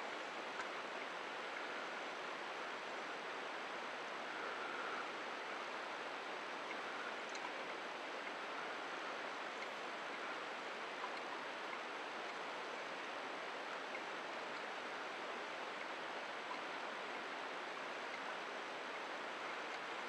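Steady hiss of the open sea's wash and wind on the microphone, even and unchanging, with no distinct events.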